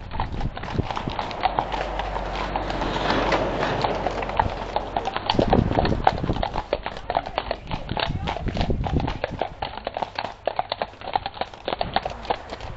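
Hooves of several ridden horses clip-clopping on a paved lane, many overlapping hoofbeats in an irregular patter.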